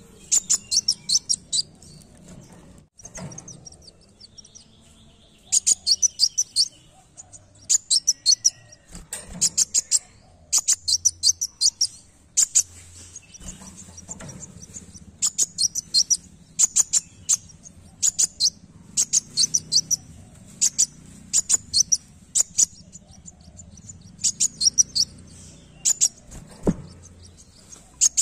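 A sunbird singing: short bursts of rapid, high, sharp chirping notes, each burst under a second, repeated again and again with brief gaps.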